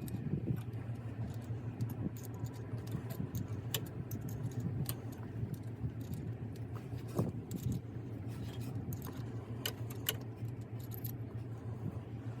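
Scattered metallic clinks and light scraping from hand tools working on a broken exhaust manifold stud in a cylinder head, the clicks irregular, over a steady low hum.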